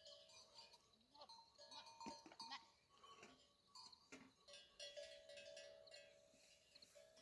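Livestock bells ringing faintly on a grazing flock, with a few short bleats about two seconds and four seconds in.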